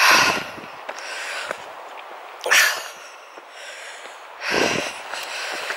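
A walking hiker breathing hard close to the microphone: three loud breaths about two seconds apart, each a noisy rush with a low rumble, over a faint steady hiss.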